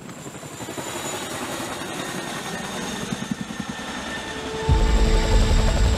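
Boeing CH-47 Chinook tandem-rotor helicopter: the rotor blades beat over a steady whine, growing louder. About three-quarters of the way through the sound jumps suddenly louder and deeper.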